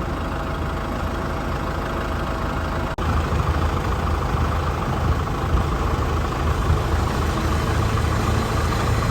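Tractor engine running steadily. The sound breaks off for an instant about three seconds in and comes back louder.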